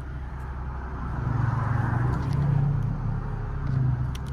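Infiniti G-series V6 engine running, its sound swelling for a couple of seconds in the middle, while the newly fitted paddle shifters are tried out.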